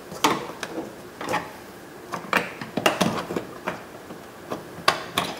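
A tool prying at a door trim piece, giving a string of irregular sharp clicks and knocks as the trim is worked loose from the panel.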